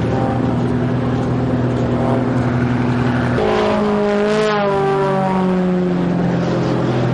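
Aerobatic propeller plane's engine droning as it flies past, its pitch dropping after it passes about four and a half seconds in.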